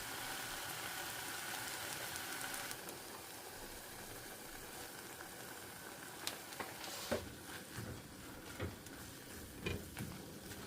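Food sizzling in a frying pan, with a handful of sharp clicks and taps in the second half, like a utensil working in the pan.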